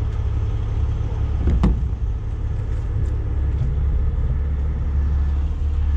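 Heavy truck diesel engine running steadily at idle, with a single short clank about one and a half seconds in.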